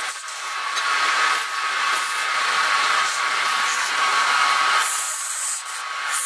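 Wood lathe spinning a wooden workpiece while a hand-held turning tool cuts it: a steady hissing scrape of shavings over a constant motor whine. The cutting eases off briefly about five and a half seconds in.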